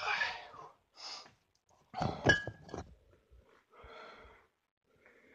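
A man breathing hard and puffing after a set of pull-ups. Loud knocks and handling clatter come about two seconds in as the phone is picked up.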